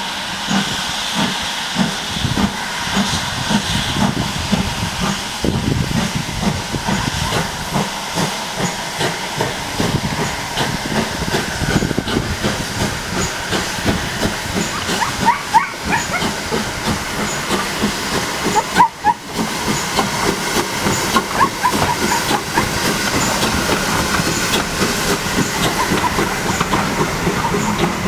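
GWR 4575 class 2-6-2 tank engine No. 5552 working a passenger train: a steady beat of steam exhaust and hissing steam, with the coaches rolling past. Short high squeaks come through about halfway.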